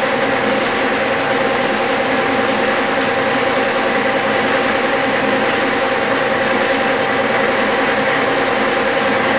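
Clausing metal lathe running steadily at slow speed: an even mechanical hum with a few constant whining tones from the motor and drive.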